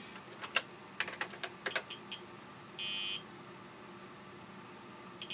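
Keys clacking on a TRS-80 Model 12 keyboard as a command is typed, then a single short electronic beep about three seconds in.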